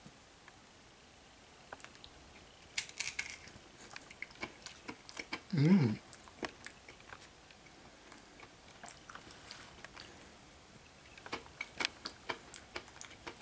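Crunchy roasted chickpeas being bitten and chewed close to the microphone: a run of small crunches, with a short hummed vocal sound about halfway through.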